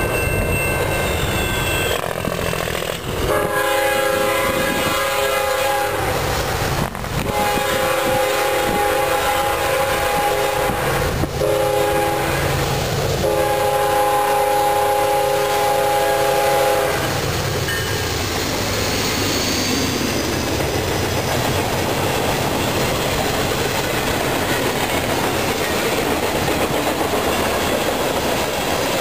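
A level-crossing warning bell rings at first. Then the lead GE Evolution-series freight locomotive's air horn sounds the crossing signal: long, long, short, long. After the horn, the freight train passes close by with a steady rumble and a clickety-clack of wheels over the rail joints.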